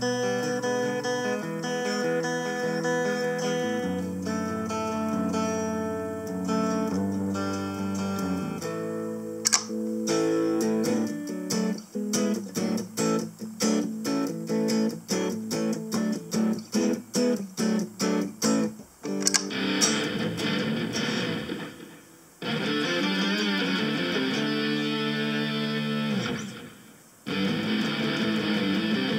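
Electric guitar played through a Harley Benton DNAfx GiT multi-effects processor. It starts with held, ringing chords and notes, then moves to short choppy chords about three a second. About two-thirds of the way through it changes to a brighter, noisier tone with strummed chords that stop briefly twice.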